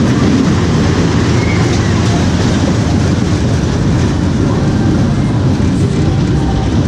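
Small family roller coaster train running along its steel track, a steady heavy rumble heard from on board.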